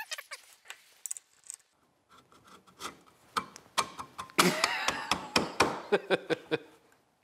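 Black sheet-metal cover of a Behringer PSU-T tube-microphone power supply being fitted back onto its chassis: scraping, with a quick run of metal clicks and knocks from about three and a half seconds in, busiest just past the middle.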